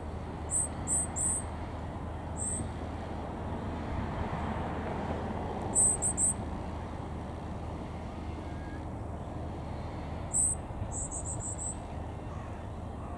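Goldcrest calling: very high, thin notes in short runs, three in a row near the start and again mid-way, single notes between, and a quick run of five near the end, over a steady low background rumble.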